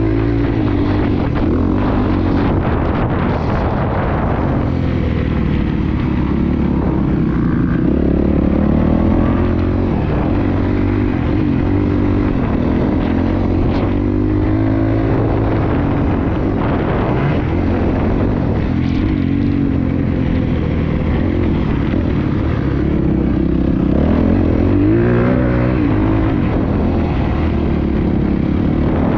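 Honda 250 four-stroke motocross bike's single-cylinder engine heard from on board while riding, its revs rising and falling again and again as the throttle opens and closes through the track's straights and turns.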